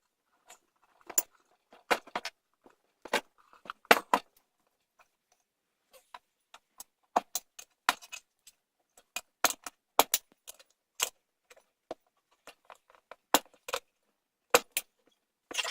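Irregular sharp metal clicks and knocks as the bead of a stiff new tire is levered onto a minibike wheel rim, with a busier cluster of clinks near the end.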